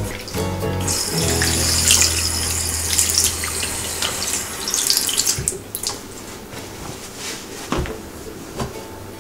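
Water running from a single-lever mixer tap into a white ceramic bathroom basin. It starts about a second in and is shut off about five seconds in. A few light knocks follow.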